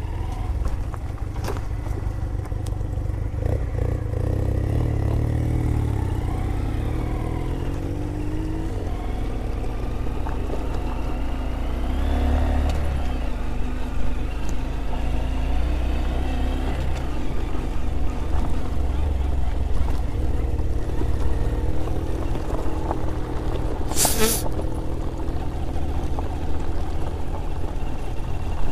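Motorcycle engine running under way, its pitch rising and falling as the revs change, over a steady low rumble. A brief sharp noise cuts in near the end.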